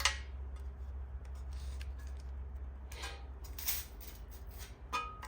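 Baking-paper template being cut and handled: a few separate crisp snips and crinkles, the sharpest right at the start, over a steady low hum.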